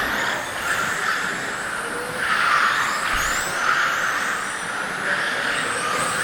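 Electric 1/10 GT RC cars with 17.5-turn brushless motors racing on the track: a hiss of tyres and drivetrain that swells as cars pass, about two seconds in and again near the end, with faint high motor whines rising and falling.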